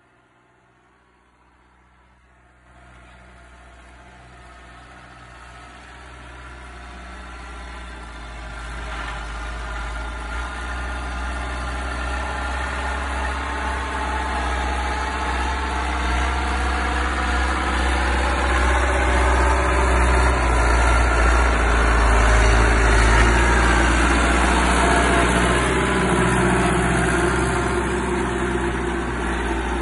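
Ford 5880 tractor's diesel engine working steadily under load as it pulls a tine cultivator through the soil. It starts faint, grows steadily louder as the tractor comes close, then eases off a little near the end.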